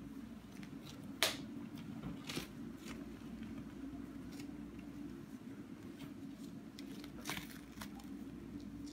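Self-adhesive faux-leather repair strips rustling and crackling as they are pressed and smoothed onto a sofa armrest by hand, with a few sharp clicks, the loudest about a second in. A steady low hum runs underneath.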